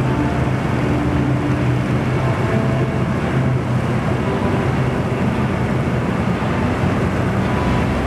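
Deutz-Fahr TopLiner combine harvester running steadily under load as it cuts wheat: a continuous engine sound with a low, even hum and machinery noise.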